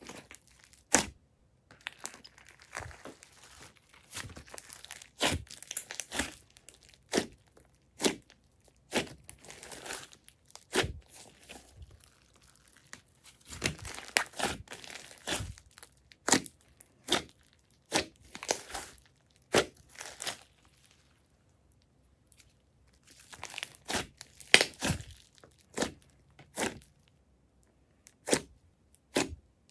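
Hands squeezing, folding and pressing a large, soft clay slime, which gives irregular sharp pops and crackles amid soft squishing. The handling pauses briefly about two-thirds of the way through.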